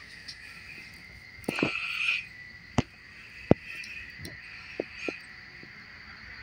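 A handful of sharp clicks and knocks of plastic containers being handled, the loudest two about a second apart near the middle, over a faint steady high-pitched tone.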